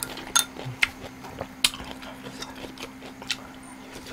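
Close-miked mouth sounds of a man chewing a mouthful of food, with irregular sharp clicks and smacks, over a faint steady hum.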